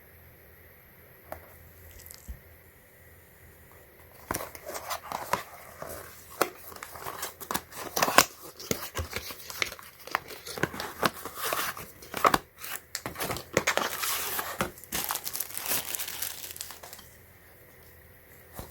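Packaging being handled and opened: irregular crinkling, rustling and tearing that start about four seconds in and stop shortly before the end.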